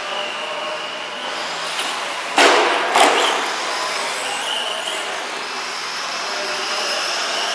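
ECX Torment 2WD short-course RC truck's electric motor whining in spurts as it is driven on a dirt track, over a steady background hiss. Two sharp, loud knocks about half a second apart come in the middle.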